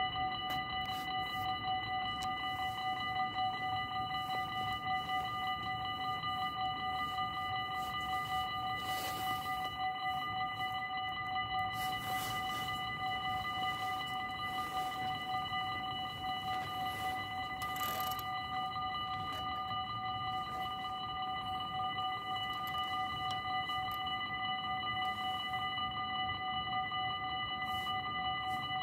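Level crossing warning bells ringing without a break, a rapid, even ring with several clear pitches. A few short rushes of noise pass over it.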